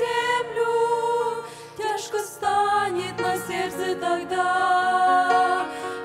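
Female vocal group singing held notes in close harmony with vibrato, over steady lower accompanying notes, with a brief drop in loudness about two seconds in.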